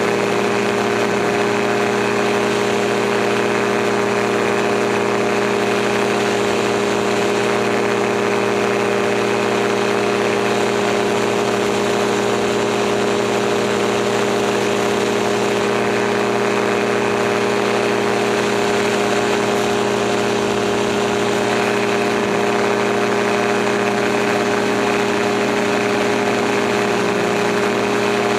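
Gyroplane engine and propeller running steadily in flight, a constant drone that holds the same pitch and level throughout.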